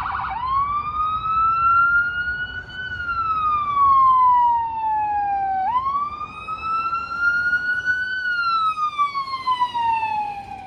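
Ambulance siren: a fast yelp breaks off right at the start into a slow wail that rises and falls twice, each rise-and-fall taking about five seconds. Traffic noise runs underneath.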